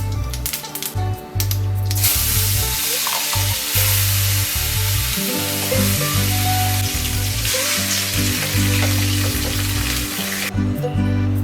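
Food frying in hot oil in a pan, a steady sizzle that starts suddenly about two seconds in and cuts off shortly before the end, with soft background music underneath.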